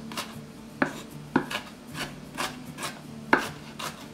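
Chef's knife mincing diced onion on a wooden cutting board: quick, uneven knocks of the blade on the board, about three a second, three of them sharper and louder than the rest.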